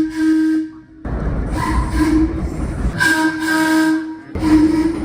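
A run of about four short, steady single-pitch horn blasts from MTA transit vehicles, some cut off abruptly, over a low rumble.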